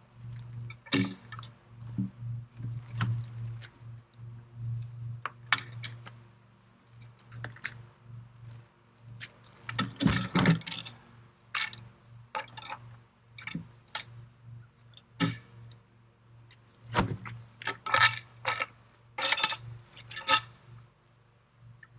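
Irregular metallic clinks, rattles and knocks, about a dozen over the span, with the loudest clusters near the middle and toward the end, over a steady low hum.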